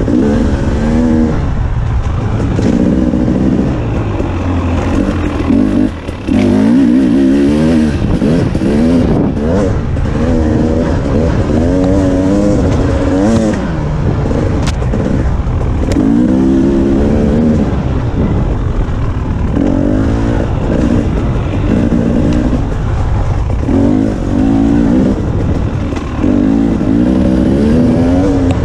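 The KTM 300 XC-W TPI's fuel-injected two-stroke single-cylinder engine revving up and down over and over as the dirt bike is ridden along a trail, with a brief drop in the engine sound about six seconds in.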